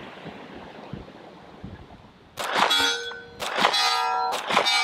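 Staccato C2 2011 pistol firing five shots in the second half, each followed by a steel target ringing.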